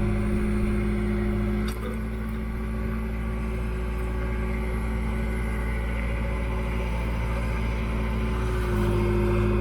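Case 580N backhoe's diesel engine running at a steady speed, with one brief click about two seconds in.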